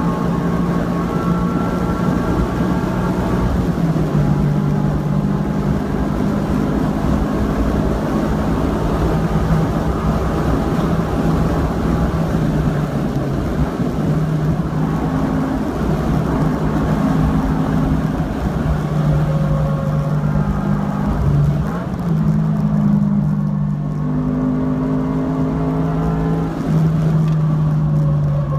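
2013 Scion FR-S's 2.0-litre flat-four, fitted with an unequal-length header and a TRD exhaust, running near the redline at full throttle, heard inside the cabin. A few seconds in it upshifts from fourth to fifth. Past the middle the revs drop and rise again through downshifts before it pulls hard again in third.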